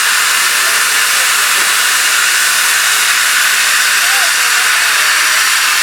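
Steam locomotive No. 85 Merlin letting off steam: a loud, steady hiss that holds level throughout.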